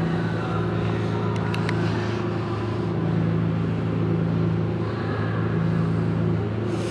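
Yamaha Royal Star Venture's V4 engine idling steadily, an even low hum, with a few faint clicks about one and a half seconds in.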